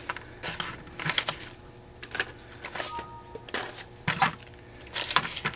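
Small metal carburetor screws and parts clicking and rattling in irregular bursts as they are picked through by hand on a plastic tray, with a brief faint metallic ring about three seconds in.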